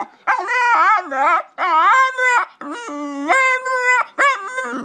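White bull terrier howling: four long, wavering calls in a row, each sliding up and down in pitch, with short breaks between them.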